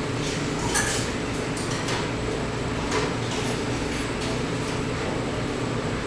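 Cafe room ambience: a steady low hum with scattered short clinks and clatters, the sharpest about a second in.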